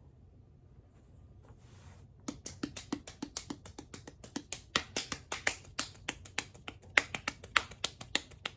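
A hand slapping a bare belly in quick succession, about five slaps a second, each with a soft low thud. The slapping starts a couple of seconds in.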